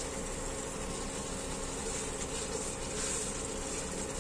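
Snow peas, mushrooms and carrots simmering and hissing in a wok with a little water while a silicone spatula stirs them, over a steady low hum.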